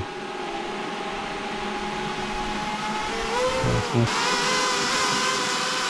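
Fishing drone's electric motors and propellers whining steadily in several tones. About four seconds in the whine gets louder and brighter as the motors spin up.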